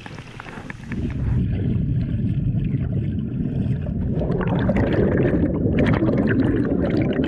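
Water sloshing and gurgling heard through an action camera pushed under the surface: from about a second in, a dense, muffled rush with the treble cut away.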